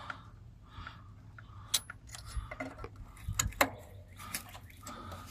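Scattered light metallic clicks and rattles of a small metal cable part and hand tools being handled. The sharpest click comes about two seconds in, with a cluster of several more a little past the middle.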